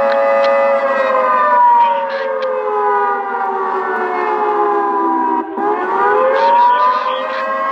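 ATI HPSS-32 electronic siren playing a prerecorded Federal 2T22 dual-tone blast on the attack cycle. A loud chord of several tones falls in pitch for about five seconds, breaks off for an instant, then rises back to a steady pitch.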